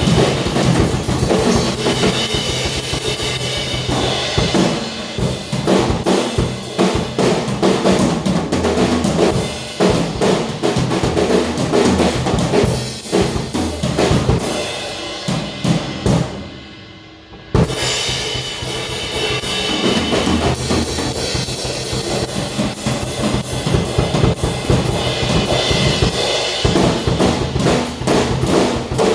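Drum kit being played, with bass drum, snare and cymbals. About sixteen seconds in the playing thins out and fades, then comes back in with a sharp hit.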